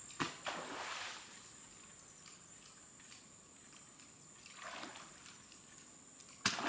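Soft splashes and swishes of a fishing lure pulled across the surface of still water, about half a second in and again around four and a half seconds in, under a steady high-pitched whine. A sudden louder noise breaks in near the end.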